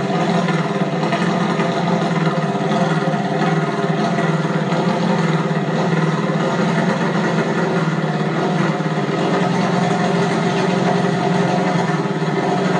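Engine running steadily at one speed, without revving.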